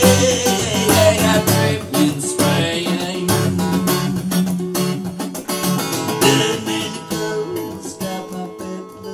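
Background music: a fast picked acoustic guitar, getting quieter toward the end.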